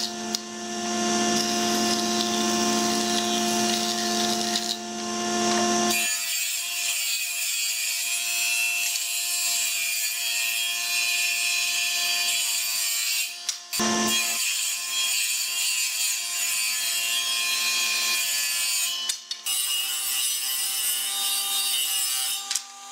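Electric power tool working pallet wood. For about the first six seconds a steady motor hum is heard, then a high, hissy sound with a few short breaks.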